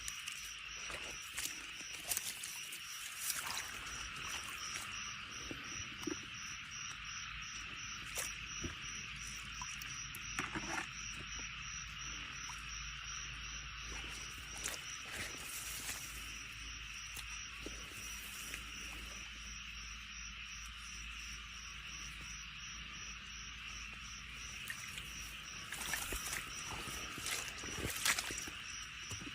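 Insects chirping steadily in a field: a constant shrill trill, with a high chirp pulsing in an even fast rhythm on top. Short clicks and knocks break in now and then, most strongly a couple of seconds in and near the end.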